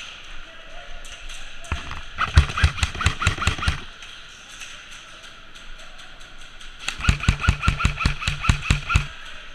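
Airsoft gun firing two rapid bursts of shots, each about two seconds long, the second starting about seven seconds in.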